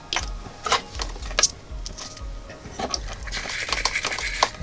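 Handling noises at a soldering bench: a few sharp clicks and taps, then a scratchy rustle for about a second near the end, over a faint low pulsing hum.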